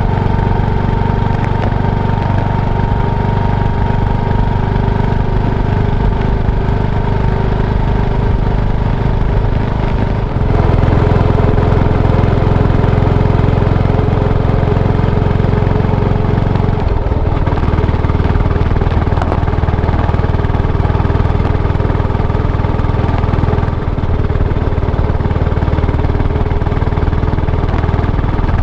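Yamaha SR400's single-cylinder four-stroke engine running steadily. Its note steps up and gets louder about a third of the way in, changes again a little past halfway, and dips briefly near the end, as with gear or throttle changes.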